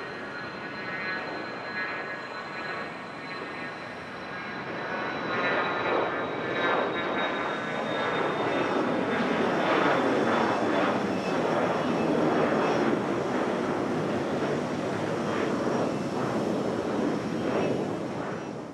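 Cessna Citation Latitude business jet passing, its twin turbofans running with a thin high whine that slowly falls in pitch. The sound builds about five seconds in, and a lower tone glides down as the jet goes by, about eight to twelve seconds in; it cuts off suddenly at the end.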